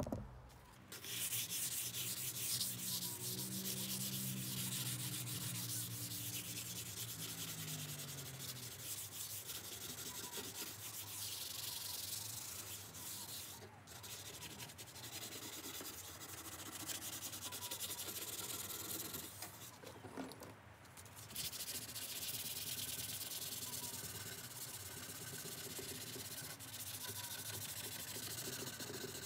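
Wet-and-dry abrasive paper rubbed back and forth along the freshly cut edge of a 6mm glass panel, taking the sharp edge off. It makes a steady scratchy rubbing, with two short pauses about halfway through.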